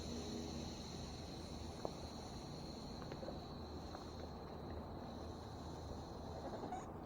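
Air hissing out of an e-bike tyre's valve stem as the tyre is let down: a faint, steady high hiss with a thin whistle in it that cuts off suddenly near the end, with a few light clicks.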